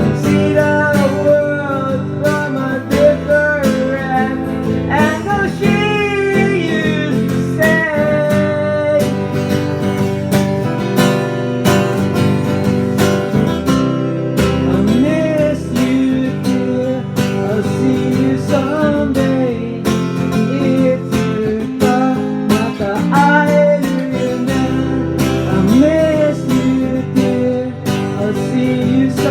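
Live acoustic guitar music: strummed chords under a melody line that bends and wavers, with no sung lyrics.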